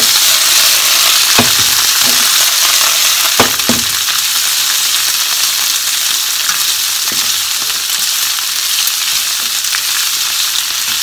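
Konnyaku pieces sizzling in sesame oil in a frying pan, a steady high hiss, while being stirred with long wooden cooking chopsticks. The chopsticks knock against the pan a few times, most clearly about a second and a half in and around three and a half seconds in.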